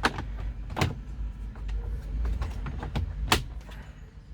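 Sharp plastic clicks and knocks as the Toyota Innova's stereo and climate-control trim panel is pressed back into the dashboard, its clips snapping into place. There are three clicks: one at the start, one just under a second in, and one a little over three seconds in, over a low rumble of handling noise.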